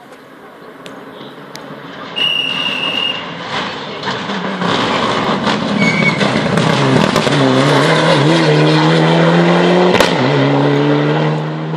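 Rally car coming past at speed on a tarmac stage. Its engine builds from about two seconds in, its pitch rises and dips through gear changes, then holds steady at its loudest about ten seconds in before easing off near the end.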